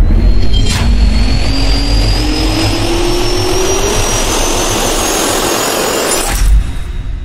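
Jet turbine sound effect spooling up: a rushing roar with a whine that rises steadily in pitch, a sharp hit about a second in, and a swell with a low thump near the end before it fades away.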